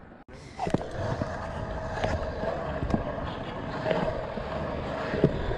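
Pro scooter wheels rolling on smooth concrete: a steady rumble with a faint hum and some wind on the microphone, broken by a few sharp clacks as the scooter goes over ramp edges and joints.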